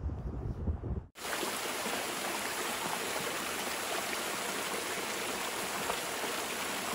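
Small waterfall spilling over a mossy rock ledge onto stones: a steady rush and splash of falling water. It starts abruptly about a second in, after a brief low rumble.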